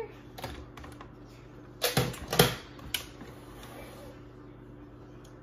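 Hard plastic clicks and knocks from a Ninja blender pitcher being handled and lifted off its base, with two louder knocks about two seconds in.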